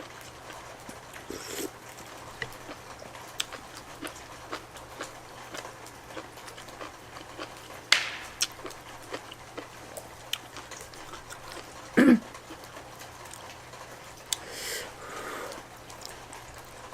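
Close-miked eating sounds: chewing and wet mouth clicks as cheesy spicy noodles are eaten, with scattered sharp clicks and a brief soft smear of noise a few seconds before the end.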